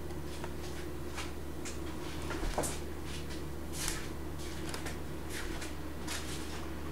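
Steady low background hum with scattered brief, soft hissing rustles and a couple of faint clicks.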